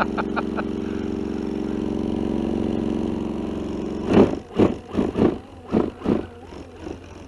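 An RC model lawnmower running steadily with a low, even engine-like drone like a real lawnmower, cutting off about four seconds in. Six short, loud sounds follow in quick succession.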